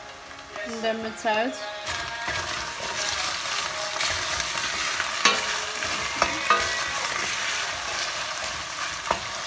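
Ground beef and onions sizzling as they fry in a stainless steel pot, stirred with a wooden spoon that gives a few sharp knocks against the pot.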